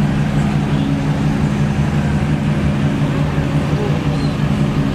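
A vehicle engine running steadily at low speed, with an even low hum that holds the same pitch throughout.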